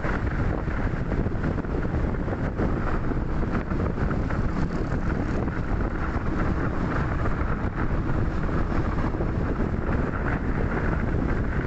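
Steady wind rumble buffeting the microphone while riding along a road, with no other distinct sound standing out.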